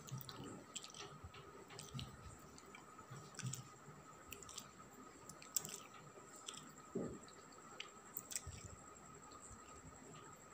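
A kitten pawing and biting at something on a concrete floor: faint, irregular clicks and soft scuffs, with a low thump about seven seconds in, over a faint steady high whine.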